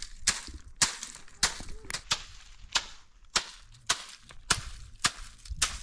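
A wooden stick beating a pile of dried bean pods spread on a tarp, threshing out the beans: sharp, even smacks, a little under two a second.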